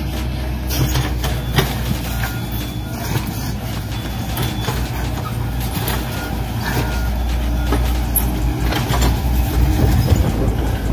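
Radio-controlled Volvo EC160E excavator model working, heard as a steady low engine-like rumble. Scattered clicks and a few short faint beeps sound through it.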